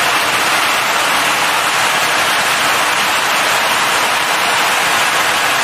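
Leisuwash S90 touchless car wash machine running: a steady rushing hiss that holds at one level throughout.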